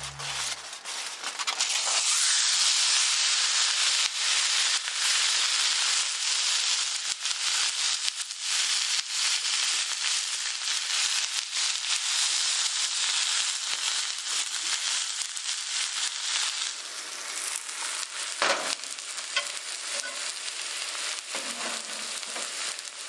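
Beef steak sizzling hard in a Nanbu cast iron skillet. The sizzle starts about a second and a half in and stays loud for around fifteen seconds, then carries on more quietly, with a single sharp knock partway through.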